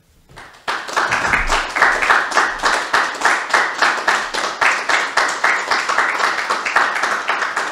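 A small group of people applauding: steady, rapid clapping from a few pairs of hands that starts about a second in.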